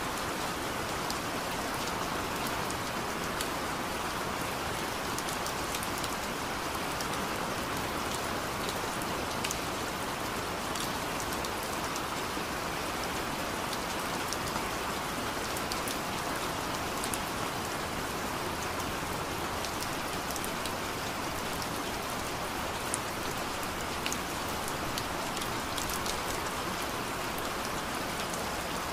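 Steady, even rain falling on a surface, with scattered sharp drop ticks.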